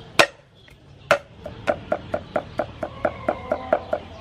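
Cleaver striking a wooden chopping block as garlic is cut: two heavy blows in the first second, then steady rapid chopping at about four to five strokes a second.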